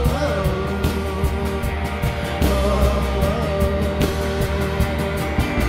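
Live indie rock band playing: electric guitars, bass guitar and drum kit, with a woman singing a held, wavering note over a steady beat.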